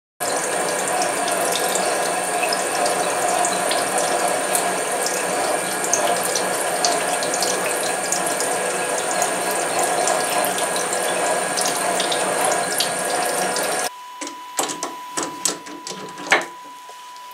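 CNC lathe cutting a thread on a long, slender workpiece with flood coolant pouring over it: a steady mix of running machinery and splashing liquid. About fourteen seconds in this stops abruptly and gives way to a few metallic clicks and knocks as hands work at the lathe's spindle nose.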